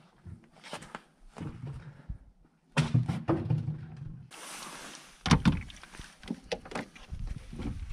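Irregular clicks, knocks and clunks of hands working around a car, with a short hiss about four seconds in and the loudest clunk just after it.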